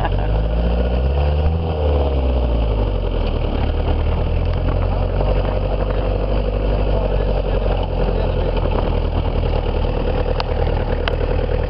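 Military jeep's engine running while the jeep drives along. Its pitch rises and then falls between about half a second and two seconds in, then it pulls steadily.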